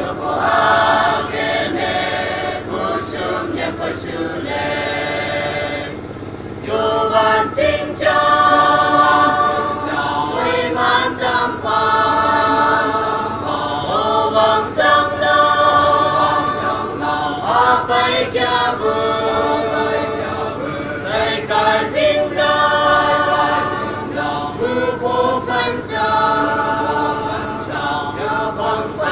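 Church choir, mostly women's voices, singing together in held, sustained notes, with a brief lull about six seconds in before the singing comes back in full.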